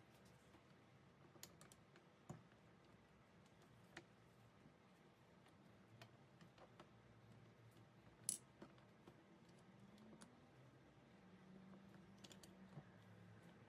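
Faint, scattered clicks and taps of metal parts of a hydraulic trolley jack being handled and fitted with gloved hands during reassembly, with one sharper click a little past the middle.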